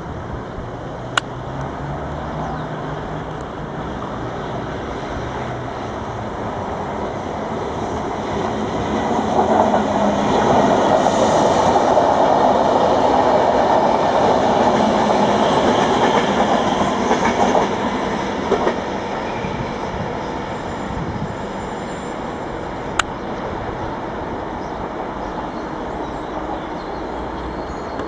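Double-deck electric commuter train passing on the tracks, growing louder to a peak in the middle and then fading as it pulls away. There are two brief sharp clicks, one near the start and one near the end.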